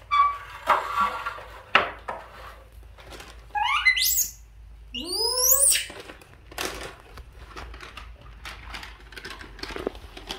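A young pet macaque gives high, steeply rising squeals twice, about four and five seconds in, amid the crinkling and clicking of a plastic seaweed packet being handled.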